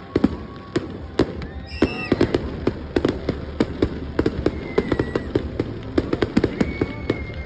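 Aerial fireworks display: a rapid, irregular run of bangs and crackling pops from shells bursting, several a second. A short high whistle sounds about two seconds in, and a thin steady whistle is heard near the end.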